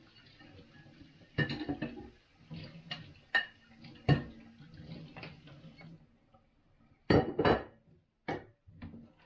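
Plates and dishes clattering and clinking in a kitchen sink during washing up by hand: a string of sharp knocks, the loudest two close together about seven seconds in.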